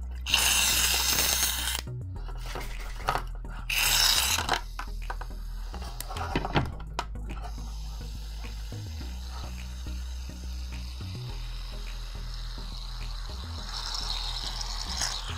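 Aerosol can of shaving cream spraying foam into an aluminium foil pan: a hissing burst of about a second and a half, a shorter one about four seconds in, then softer hissing near the end.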